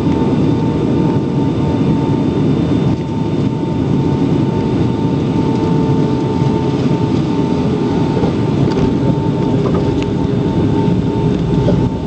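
Boeing 757-200 engine and airflow noise heard inside the passenger cabin during the landing: a steady, loud rumble with a faint tone that slowly drops in pitch.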